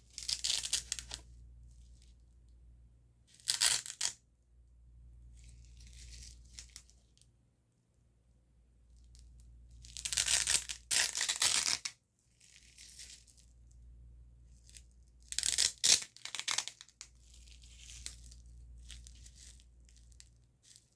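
ASMR "grip" sounds: a hand gripping and rubbing close to the microphone, making separate bursts of scratchy, rustling friction noise a few seconds apart. The louder bursts come at the start, at about four seconds, twice around ten to twelve seconds, and at about sixteen seconds, with fainter ones in between.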